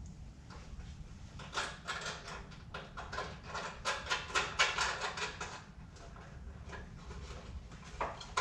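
Hand tools and metal mounting hardware clicking and rattling while a horn's bolt is fastened: a run of quick sharp clicks from about a second and a half in until about five and a half seconds, and one more near the end.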